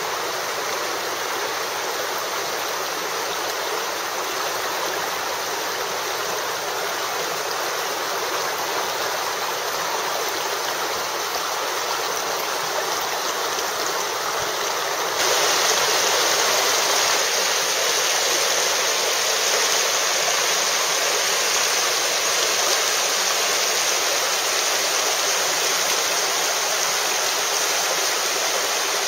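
Steady rushing of a stream running over rocks. About halfway through it steps up, louder and hissier, and holds there.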